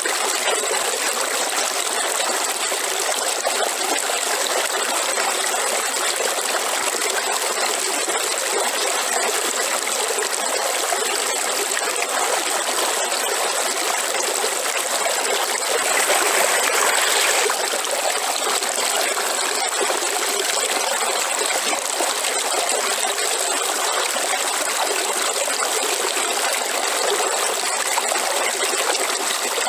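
River water flowing steadily, an even rushing and trickling, that swells louder for about a second and a half just past the middle.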